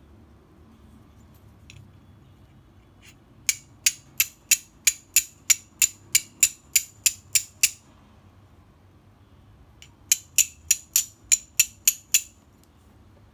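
A piece of natural flint struck repeatedly against an ESEE carbon-steel fire steel, in flint-and-steel fashion. There are two runs of sharp, ringing clicks, about three a second: about fourteen strikes in the first run, then a pause, then about eight more.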